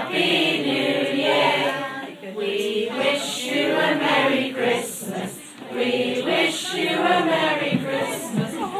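A choir of young children singing together, in phrases with short breaths between them.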